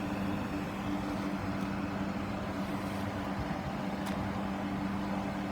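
Networker Turbo diesel multiple unit idling at the platform: a steady low engine hum with no change in pitch.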